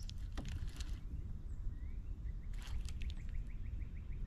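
Quiet lakeside background with a low wind rumble, a few clicks from a spinning reel being handled, and a bird giving a rising note followed by a quick run of short chirps in the second half.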